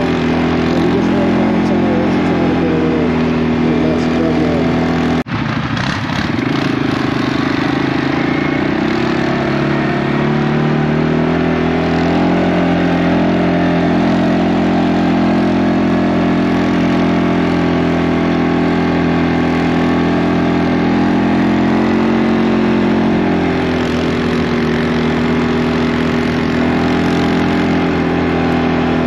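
ATV engine running while riding along at a steady cruising speed. There is a momentary break in the sound about five seconds in, after which the engine note climbs over a few seconds. It eases a little about three-quarters of the way through.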